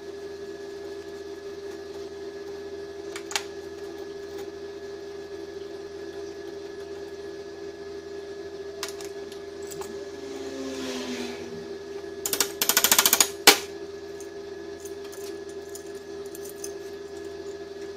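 Small metal tool-and-wire work at a bench vise: scattered clicks and a short scrape, then a fast rattle of clicks lasting about a second that ends in a sharp click, over a steady hum.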